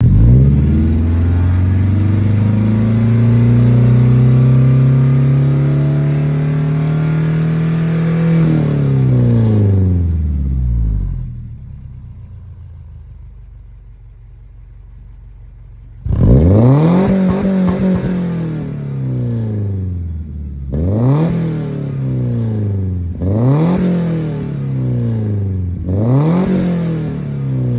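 Toyota petrol engine revved and held high for about eight seconds, then dropping back to a quiet idle. It is then blipped four times, each rev rising sharply and falling straight back.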